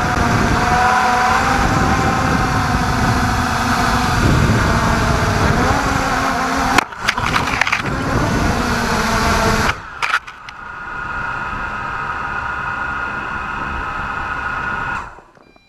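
MJX Bugs 3 quadcopter's brushless motors and propellers buzzing loudly in flight. About seven seconds in, sudden knocks as it comes down on the snow, then a quieter, steadier motor whine with a few clear pitched tones, until the motors cut off near the end.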